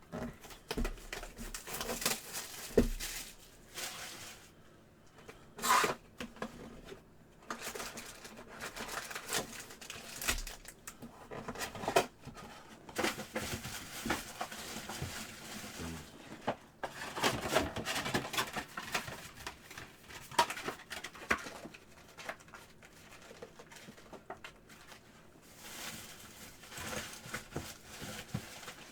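Trading cards and foil pack wrappers being handled: a steady run of rustling, crinkling and flicking, with sharper snaps and tearing here and there.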